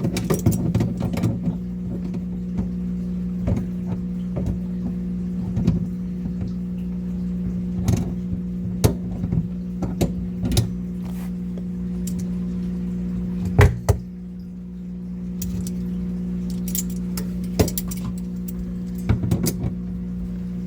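A steady low electric hum runs throughout, dropping away for a moment about two-thirds of the way through after a loud knock. Scattered clicks and knocks of plastic fittings and tubing being handled sit on top of it.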